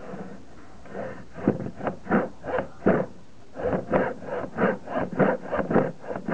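A hacksaw blade held in a door hinge sawing through an MDF strip by hand, in rasping back-and-forth strokes of about two to three a second. The strokes start about a second in and pause briefly around the middle.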